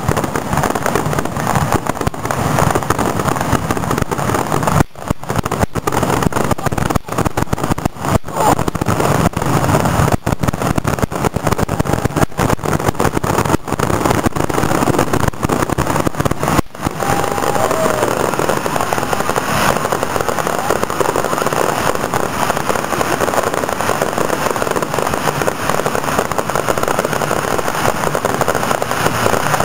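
A dense, continuous barrage of fireworks going off, the many bangs and crackles running together into one loud, unbroken noise, with a few brief dips between about 5 and 17 seconds in.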